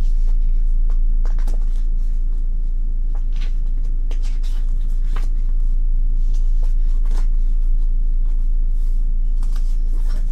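Pages of a glossy album photobook being turned by hand: scattered soft paper rustles and flicks, over a steady low hum that is the loudest thing throughout.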